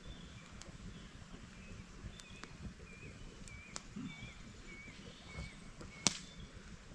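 A bird calling a short wavering note over and over, about twice a second, over a steady background hiss with scattered sharp ticks; one loud sharp crack about six seconds in.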